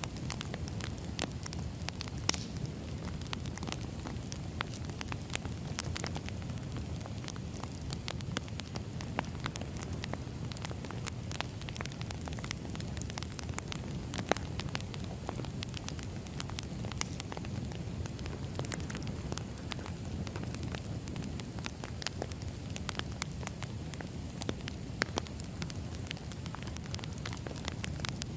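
Firewood burning in a fire, crackling with frequent irregular sharp pops over a steady low rumble.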